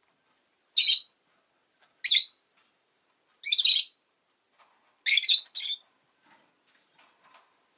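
Rosy-faced lovebird calling: four sharp, high-pitched chirps about a second apart, the last one a quick double note, with quiet between them.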